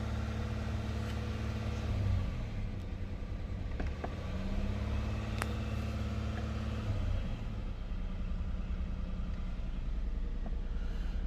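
2015 Hyundai Genesis 3.8-litre V6 engine running near idle; with the accelerator pressed its note rises only a little between about four and seven seconds in, then drops back. It barely responds to the throttle, which comes from a throttle actuator control range/performance fault with the engine in limp-home mode.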